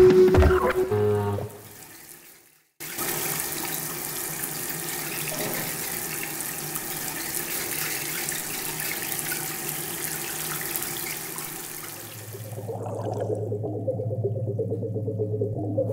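Music fades out into a moment of silence, then a steady rush of running water comes in with faint low tones beneath it. Near the end the water hiss drops away as a low, steady musical tone with pitched layers above it swells in.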